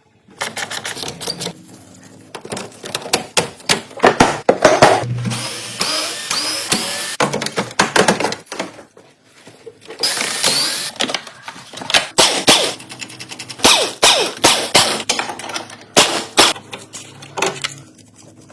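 Metal hand tools clicking and knocking in an engine bay, in quick irregular strokes, with a few short stretches of rasping noise, as parts are taken off to reach the water pump.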